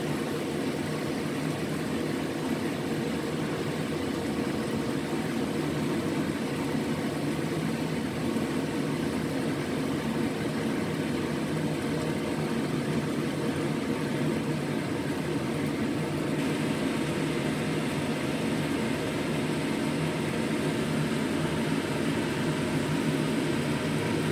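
Steady whirring drone of a kitchen fan running while a lidded pan cooks on the stove, with a faint hiss that picks up slightly about two-thirds of the way through.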